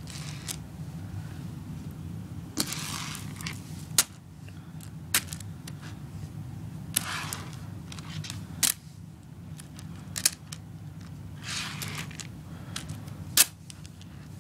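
Plastic pony-bead kandi being handled: scattered sharp clicks, about eight in all with the loudest near the end, and three short rustling swishes as the beads are picked up and moved, over a steady low hum.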